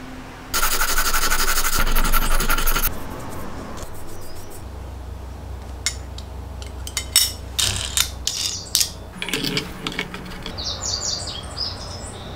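Metal jig parts handled and fitted together by hand: a loud scraping rub of metal sliding on metal for about two seconds near the start, then a scatter of light metal clicks and clinks as the small plates and fittings are set in place.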